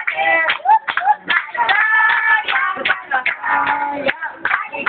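A group singing a birthday song together, with hand clapping along.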